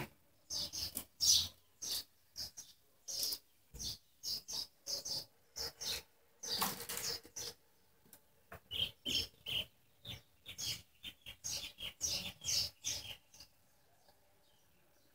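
Irregular short squeaks and rubbing from a cloth being worked over a small petrol engine, stopping about thirteen seconds in.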